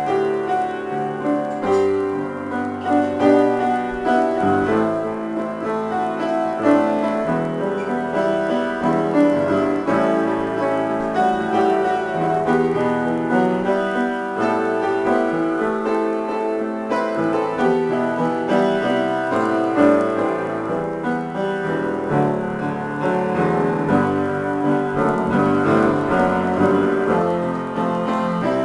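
Upright piano played in a free improvisation, with many notes and chords overlapping without a pause.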